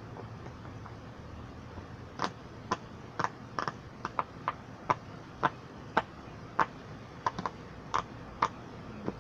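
Silicone pop-it fidget toy: bubbles pushed through one after another, making a series of sharp little pops at about two a second, starting about two seconds in.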